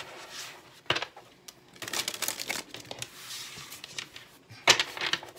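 Tarot cards being handled and laid out: a papery rustle about two seconds in, with two sharp clicks, one about a second in and one near the end.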